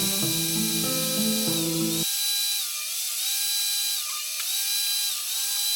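Background music whose bass is cut out about two seconds in, leaving steady high tones that dip about once a second, before the full track comes back in.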